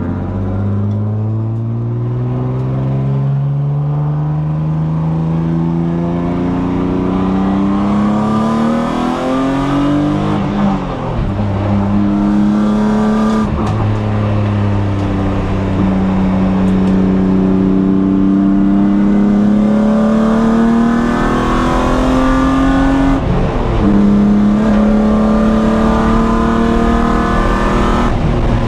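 BMW E36 M3's inline-six engine pulling hard on track: the revs climb steadily through a gear, drop at an upshift about ten seconds in, then hold high through long pulls, with a short lift a few seconds later and another gear change near the end.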